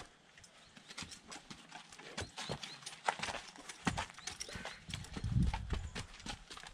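Horses' hooves clopping and shuffling in an irregular run of sharp steps as the mare is led up to the stallion, with a low, louder sound from a horse about five seconds in.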